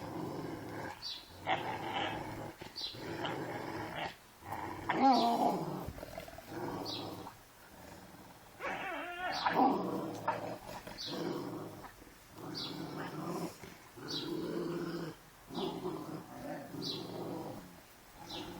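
Dogs play-growling over and over during a tug-of-war game, with a louder, higher yelping growl about five seconds in and again near ten seconds.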